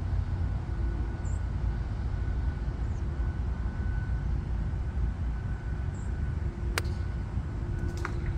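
Steady low outdoor rumble, then one sharp click about seven seconds in as a Titleist 718 AP3 5-iron strikes the golf ball on a lay-up shot. A few fainter clicks follow about a second later.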